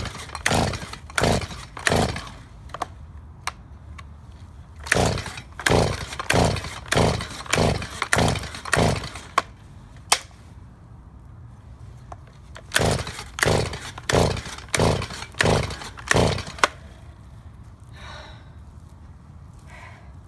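Stihl MS170 two-stroke chainsaw being pull-started, with three runs of quick yanks on the recoil starter cord, each pull cranking the engine briefly. It never catches and keeps running: a hard-starting saw. A single sharp snap comes about ten seconds in.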